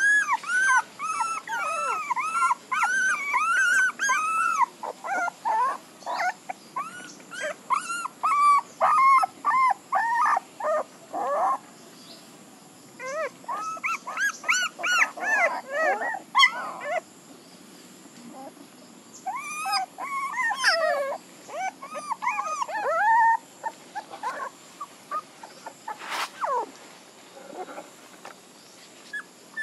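Young puppies whimpering in many short, high-pitched cries, in busy bouts with brief pauses.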